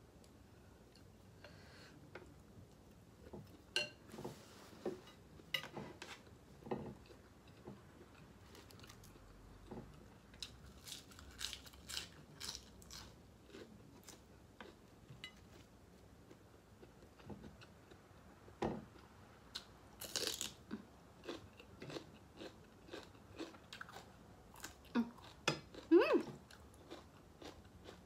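A person chewing and biting food close to the microphone: irregular wet mouth clicks and small crunches, with a louder cluster near the end.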